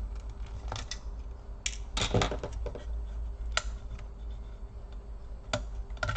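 Scattered light clicks and taps of a screwdriver and small metal laptop parts being handled, with a short cluster of clatter about two seconds in, over a steady low hum.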